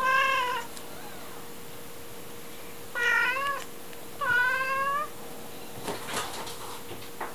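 A cat meowing three times, short calls that bend in pitch, the first near the start and two more close together about three and four and a half seconds in. A few faint clicks follow near the end.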